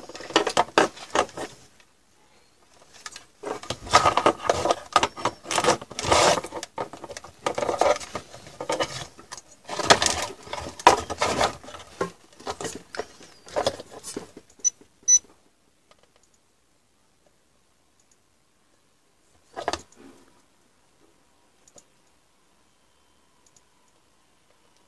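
Metal clinking, rattling and scraping as a power-supply heatsink with its rectifier diodes is handled and moved about on a multimeter, in a long irregular flurry that stops after about fifteen seconds. A single knock follows a few seconds later.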